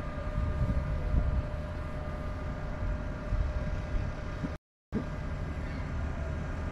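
Steady outdoor mechanical hum over a low rumble, such as an idling engine, traffic or a building's machinery. The sound cuts out completely for a moment about two-thirds of the way through.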